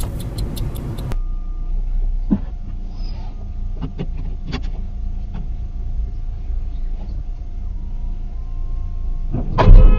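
Low, steady car cabin rumble picked up by a dashcam, with a few scattered sharp ticks, then a loud thump near the end.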